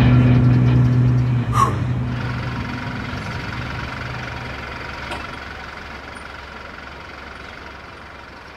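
Mobile crane's diesel engine held at high revs under load during a lift, its note steady for about a second and a half, then dropping away and fading out over the next few seconds. A faint steady high whine stays underneath.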